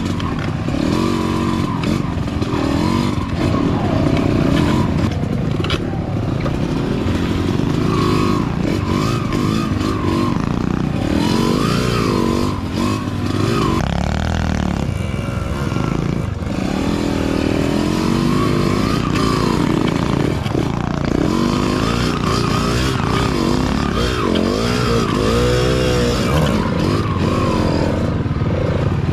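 Small dirt-bike engines running, their revs rising and falling constantly.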